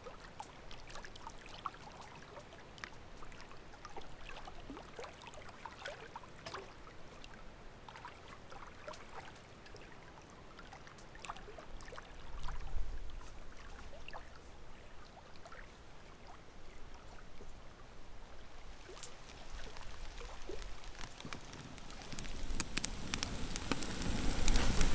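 Lake water lapping gently at the shore, with many small splashes, drips and trickles. A low rushing noise grows louder near the end.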